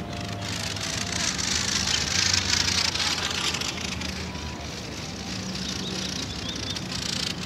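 A steady rushing hiss that swells to its loudest about two seconds in and then eases back, over a faint low hum.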